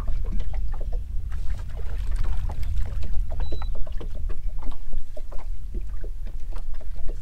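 Small boat on rippled water: a steady low rumble of wind on the microphone, with many small slaps and clicks against the hull. A brief high beep comes about three and a half seconds in.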